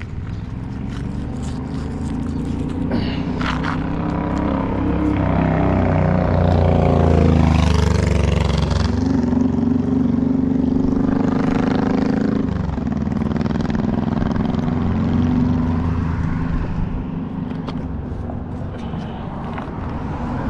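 Motor vehicles passing close by. One engine swells to its loudest about seven seconds in and drops in pitch as it goes past, and a second passes with a falling pitch about twelve seconds in.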